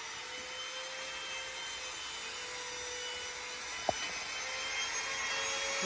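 Compact handheld trim router running steadily with a constant motor hum as it is guided along a wooden board. A single sharp click about four seconds in.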